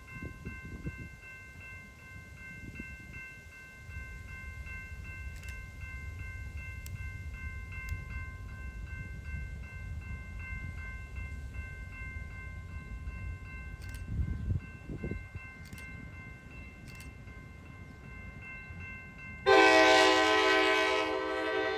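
A diesel locomotive approaches at low speed with a low engine rumble while a grade-crossing bell rings in an even, rapid pulse. About two seconds before the end, the locomotive's horn sounds one loud, sustained blast.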